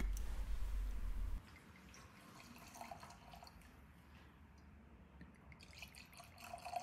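Whisky poured from a bottle into a stemmed tasting glass, a faint trickle with drips and light clinks. It follows a low rumble that stops abruptly about a second and a half in.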